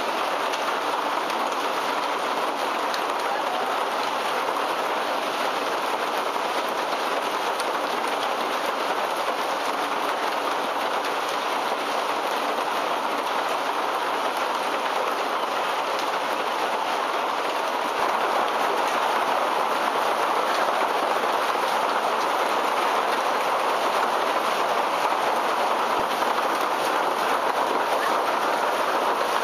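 Heavy hailstorm: a dense, steady din of large hailstones pelting down, with countless hard ticks of individual stones mixed into the rush of rain. It grows a little louder about two-thirds of the way through.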